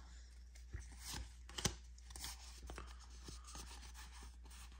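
Faint rubbing and a few light taps of Pokémon trading cards being handled and slid against one another, the sharpest tap about a second and a half in.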